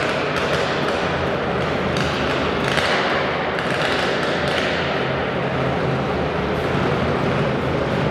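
Modified twin-cylinder garden pulling tractor engine idling steadily, with scattered knocks and clatter over it.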